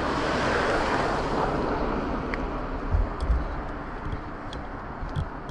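A car passing on the road, its noise swelling and then fading away over the first two seconds, followed by a few low thumps on the microphone.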